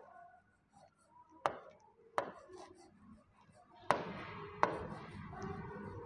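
Stylus tapping on an interactive display's screen while writing: about five sharp taps spread across a few seconds, with faint scratching from about two-thirds of the way in.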